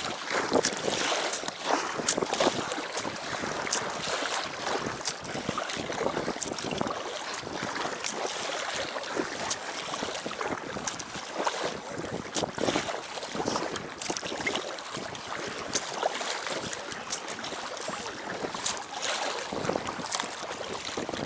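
Lake water lapping and splashing against the side of an inflatable packraft, with wind buffeting the microphone and many small scattered taps and clicks.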